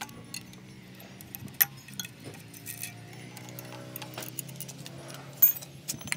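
Scattered metallic clicks and clinks of hand tools and fittings as the fuel injector connectors are worked loose on a common-rail diesel engine, over a steady low hum. The sharpest clink comes near the end.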